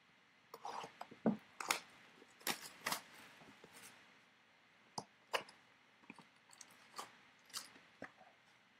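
Foil wrappers of 2017 Elite football card packs crinkling and rustling as a handful of packs is handled and set down, with irregular crackles and light taps.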